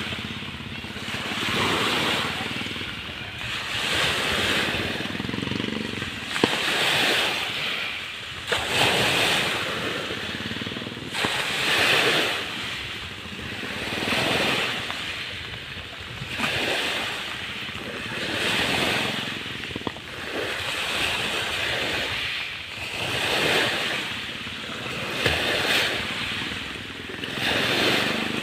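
Small lake waves washing onto the shore, swelling and fading about every two seconds, with a few faint sharp clicks.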